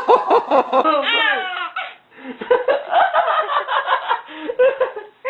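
A child laughing hard in quick repeated bursts. Near two seconds in it breaks off briefly, then the laughter goes on.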